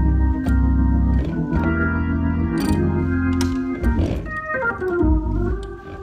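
Gospel organ playing sustained chords over deep bass notes that change about once a second. In the last two seconds the chords thin out and waver in pitch.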